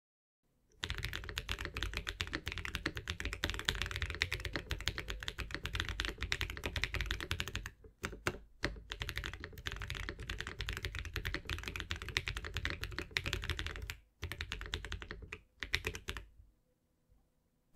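Fast, continuous typing on a Tofu SE 60% mechanical keyboard with Akko V3 Cream Blue switches and PBT keycaps. It starts about a second in, has brief pauses around the middle and again later, and stops a little before the end.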